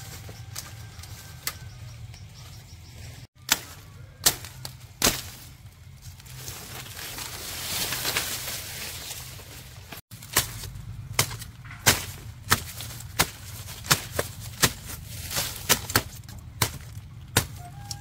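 Sugarcane stalks being chopped with a blade: sharp blows, three spaced ones, then a steady run of about one every 0.7 seconds. A longer rising hiss comes between them.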